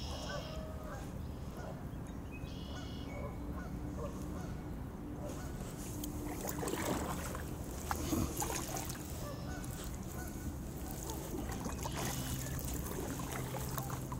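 Waterfowl honking, two short calls in the first few seconds, with kayak paddle splashes and knocks louder in the middle.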